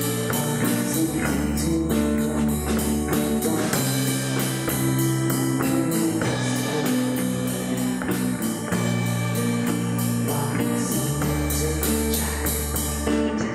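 Indie rock band playing live: strummed acoustic guitar over a steady drum-kit beat, with a voice singing.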